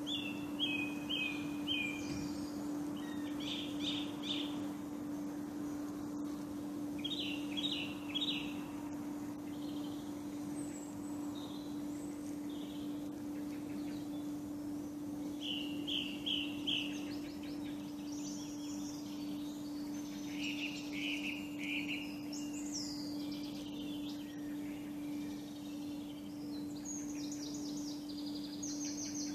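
Songbirds singing: one bird repeats a short phrase of three or four quick descending notes every few seconds, with other birds adding higher chirps, over a steady low hum.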